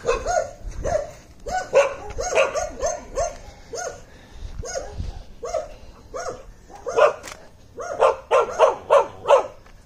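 A dog barking over and over in short barks, the barks coming faster near the end.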